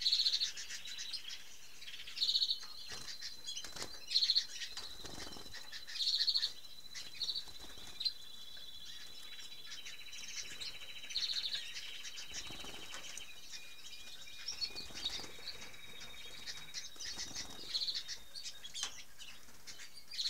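Caged canaries chirping, with short high calls every second or two and trilled song phrases now and then, plus wing fluttering as the birds hop between perches.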